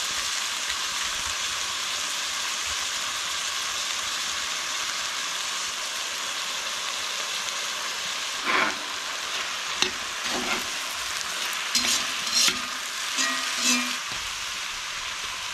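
Ground venison and mushrooms sizzling steadily in a cast-iron pan on a wood stove. From about halfway through, a knife scrapes corn kernels off the cob into the pan, with several short scrapes and taps. Near the end a few knocks come as Brussels sprouts drop in.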